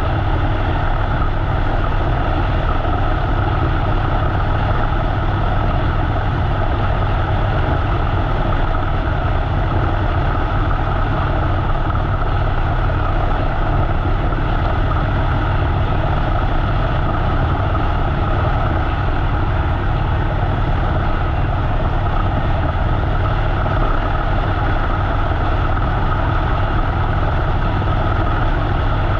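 Harley-Davidson V-twin motorcycle engine running steadily while riding along the road.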